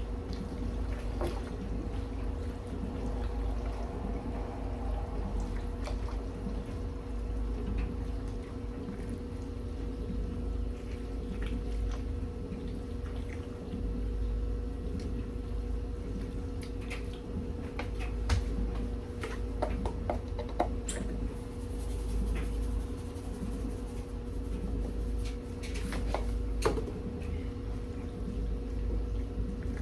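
A spoon working a thick, creamy casserole mixture in a pot, with wet squishing and scattered clicks of the spoon against the pot, over a steady low hum.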